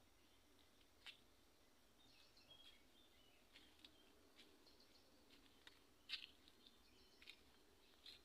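Faint bird chirps: short high notes scattered irregularly, with a couple of sharper ones about a second in and about six seconds in, over an otherwise near-silent background.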